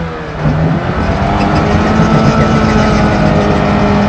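Suzuki Samurai 4x4's engine held at high revs under load as the vehicle crawls over rocks. The engine sags briefly at the start, then picks up again about half a second in and holds a steady, loud note.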